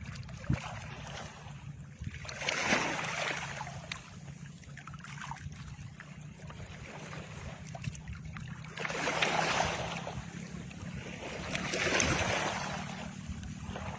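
Background soundtrack: a steady low drone with soft whooshing swells rising and fading about three, nine and twelve seconds in.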